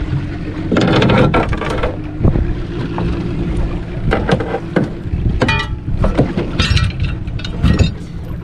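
Small boat under way: its outboard motor gives a steady low hum, with wind on the microphone and irregular knocks and thumps throughout.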